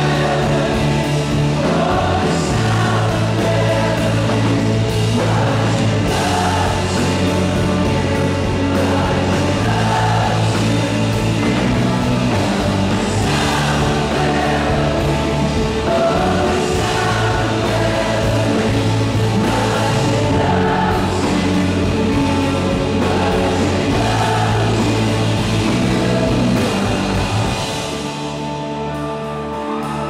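Live rock band playing, with a man singing lead over electric guitar and keyboard. Near the end the bass drops out and the music gets quieter.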